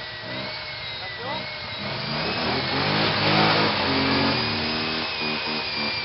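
ATV engine revved hard under load, pitch climbing from about two seconds in to a peak around three and a half seconds, then dropping back to a steadier run, as the quad churns through a muddy ditch.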